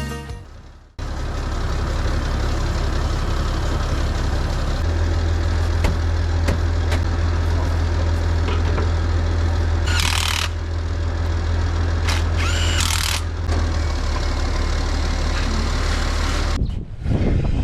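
Tractor diesel engine idling steadily, with two brief hissing bursts about ten and twelve seconds in; the engine sound cuts off near the end.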